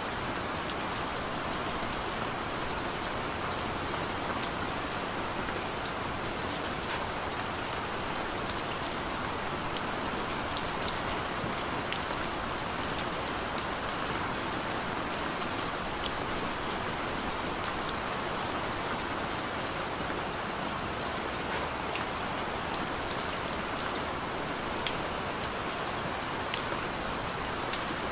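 Steady rain falling, an even hiss with the sharp ticks of individual drops striking a surface scattered throughout.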